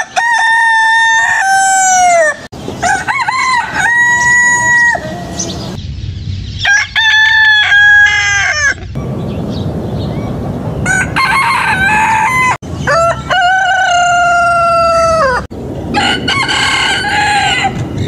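Chickens crowing: a string of about six long, drawn-out crows, each held and then falling away at the end, with abrupt cuts between them.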